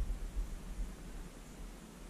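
Faint outdoor ambience: a steady hiss with an uneven low rumble, as the tail of background music dies away in the first half-second.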